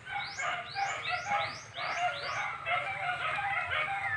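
Several birds calling and chirping, with a series of quick rising whistled notes, about three a second, that stops about halfway through.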